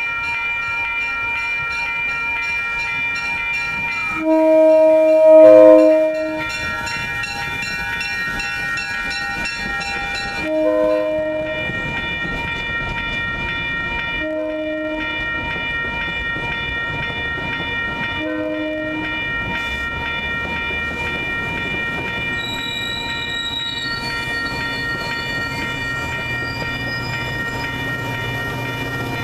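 MBTA commuter train horn: one long, loud blast about four seconds in, then three short blasts a few seconds apart. A bell rings steadily throughout, and in the second half the rumble and clatter of the passing cars builds.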